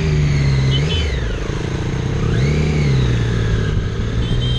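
Triumph Daytona 675R's inline three-cylinder engine riding through traffic: the revs drop about a second in, rise and fall again around the middle, then hold steady. Short high beeps come in briefly near the start and again near the end.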